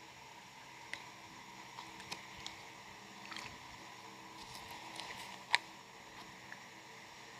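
Homemade jiggly slime being handled, giving scattered small wet clicks and pops over a faint steady hum, with one sharper pop about five and a half seconds in.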